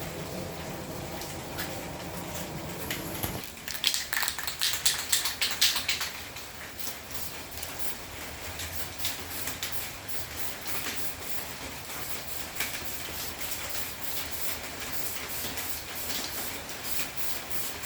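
Aerosol spray-paint can (VHT Roll Bar & Chassis) hissing in many short bursts, loudest about four to six seconds in. A steady low hum before that cuts off abruptly about three and a half seconds in.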